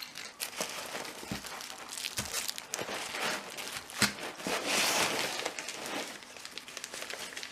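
Packing material being crumpled and rustled by hand while unpacking a parcel, a dense crinkling with a louder stretch about five seconds in and one sharp knock just before it.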